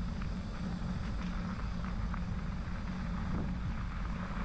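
Bicycle rolling along a damp crushed-limestone trail: a steady low rumble of tyres on the wet surface mixed with wind on the microphone, with a few faint ticks of grit.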